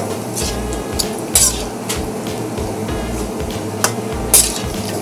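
A cooking utensil clinking and scraping against a pot a few times, sharpest about a second and a half in and near the end, over background music with a steady beat.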